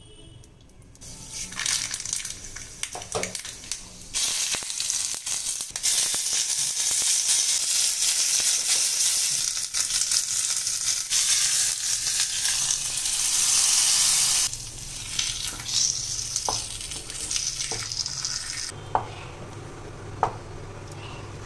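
Hot oil sizzling and spitting in a small tempering pan as curry leaves and chilli powder are fried for the tempering. The sizzle swells about four seconds in and stays strong for about ten seconds, then dies down to a softer hiss with a few sharp clicks near the end.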